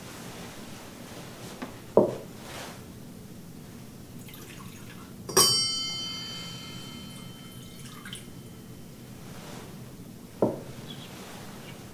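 Altar vessels handled during the preparation of the chalice: a sharp knock about two seconds in, then a clink about five seconds in that rings on for about three seconds, and another knock near the end.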